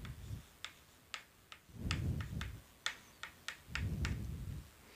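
Chalk writing on a blackboard: a scatter of sharp, light taps as the chalk strikes the board, with three duller, lower strokes of about half a second each in between.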